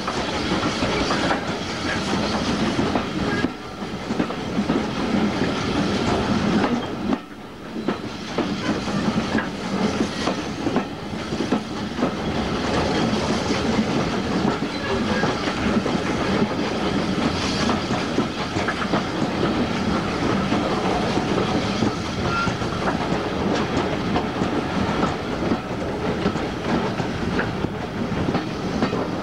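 Passenger coach running along the line, wheels clattering over the rail joints, heard from an open carriage window; the noise dips briefly about seven seconds in.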